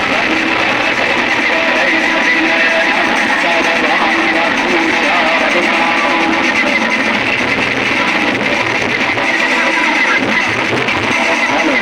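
Loud instrumental music playing without a break.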